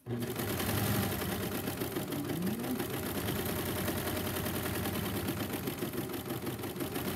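Four-thread serger stitching at speed, starting up abruptly and then running steadily with a fast, even whir, its knife blade trimming the fabric edge as it sews the seam.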